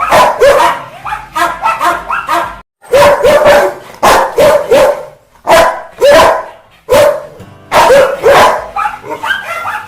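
Rottweiler barking angrily, a rapid run of barks in clusters of several, broken by two brief gaps.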